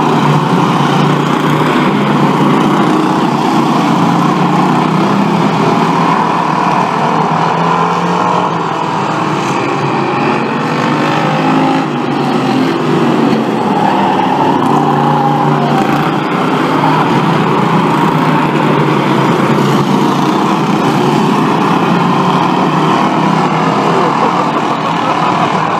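A pack of Bomber-class stock cars racing on an oval, their engines running loud and steady under throttle, with cars passing close by near the start.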